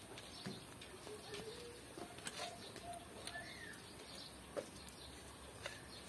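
Faint outdoor ambience: a dove cooing and another bird chirping, with a few light metallic clicks as a galvanized pipe bushing is threaded into a fitting by hand.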